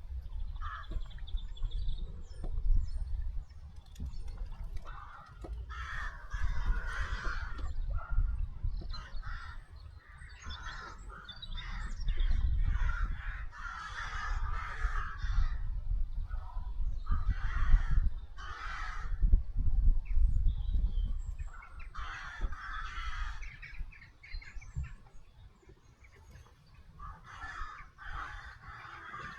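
Birds calling in repeated bursts, each a second or two long, about six times, over a steady low rumble.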